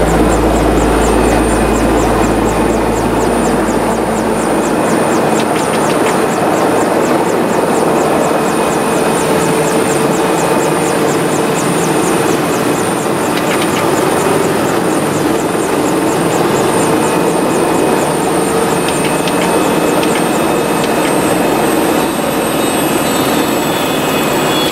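Helicopter turbine engine and rotor heard from inside the cockpit while it sits on the helipad just after landing: a loud, steady din with a high whine. A low deep hum drops away about five seconds in.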